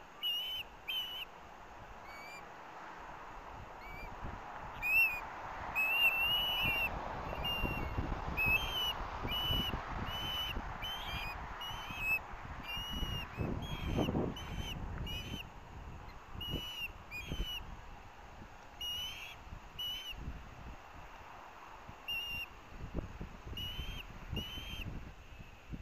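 Juvenile osprey giving a long run of short, sharp whistled chirps, one or two a second, the food-begging calls of a chick wanting its sibling's fish. Low rumbling and bumps on the nest microphone lie beneath.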